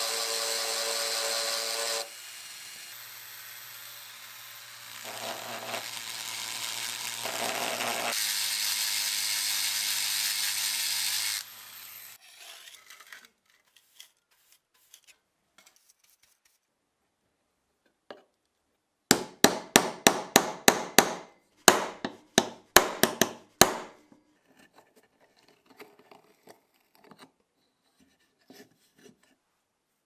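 A handheld rotary tool with an abrasive bit whines and grinds against a rusty steel knife blade for about twelve seconds, changing in tone twice. Later comes a quick run of about ten brush strokes sweeping the wooden bench, then a few faint handling sounds.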